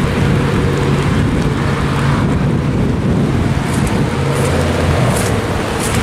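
Steady outdoor noise of rain and road traffic, with a low steady hum underneath.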